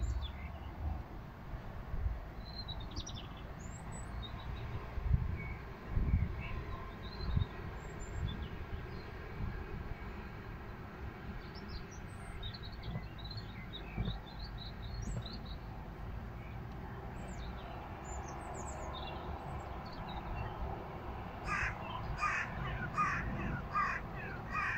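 Birds chirping and calling outdoors, with a quick run of about seven loud calls near the end. Occasional low rumbles of wind on the microphone.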